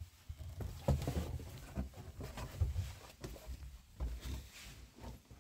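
Footsteps going down a staircase: a run of uneven low thuds with light scuffs and rustling.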